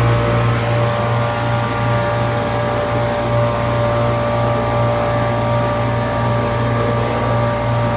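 Hydraulic elevator power unit running: the electric motor and oil pump give a deep, steady hum with a steady whine above it, the pump pushing oil to raise the car.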